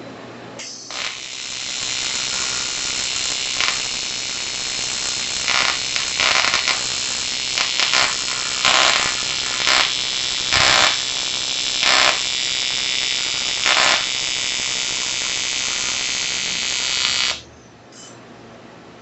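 TIG welding arc on an aluminium air-conditioning tube at about 40 amps: a steady buzzing hiss that starts about a second in, swells briefly every second or so through the middle, and cuts off suddenly near the end as the arc is broken.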